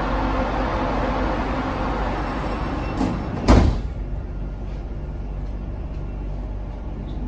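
Metro carriage's sliding passenger doors closing, with a light click just before they meet with a single sharp thud about three and a half seconds in. Once they are shut the steady background noise drops to a quieter level.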